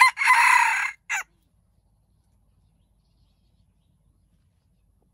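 Junglefowl rooster crowing: the end of a short crow, a drawn-out note that breaks off about a second in, followed by a brief clipped final note.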